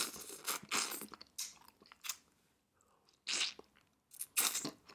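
Close-miked eating of a shell-on jumbo Cajun prawn: a series of short, wet crunching bites and chews with quiet gaps between them.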